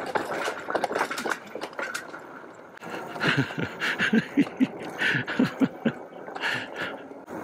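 Engwe Engine Pro fat-tyre e-bike ridden along a dirt trail: a steady rumble of tyres and wind with scattered clicks and rattles, then, after a break about three seconds in, a run of short, gliding pitched sounds among the clicks.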